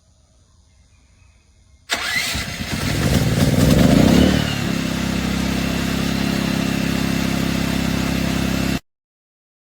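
Westinghouse 14500-watt tri-fuel portable generator's engine starting: it catches suddenly, rises to a brief peak, then settles into a steady even run. The sound cuts off suddenly near the end.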